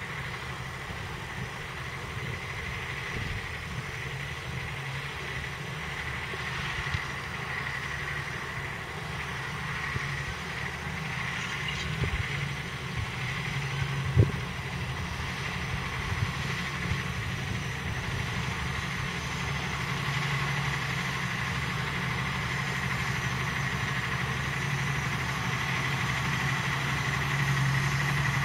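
Valtra T174's 7.4-litre six-cylinder diesel engine running steadily under load as the tractor pulls a reversible plough, with a steady high whine over the engine note. It grows gradually louder as it approaches, and there is a single knock about halfway through.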